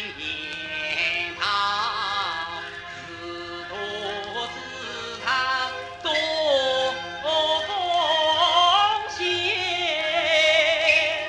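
A small plastic record player playing a record: a high, wavering sung melody with strong vibrato, over a steady low hum.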